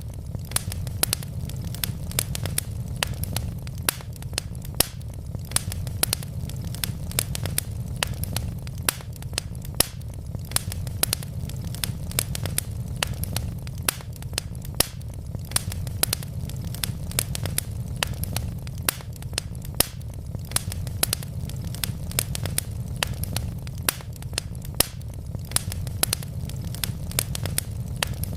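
Wood logs burning in a fireplace, crackling with frequent sharp pops and snaps over a steady low rumble of flame.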